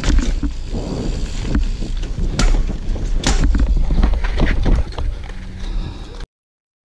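Mountain bike ridden fast down a rocky dirt trail, heard from a camera on the bike or rider: tyres rumbling over dirt and rock, the bike rattling with a few sharp knocks, and wind buffeting the microphone. The sound cuts off abruptly about six seconds in.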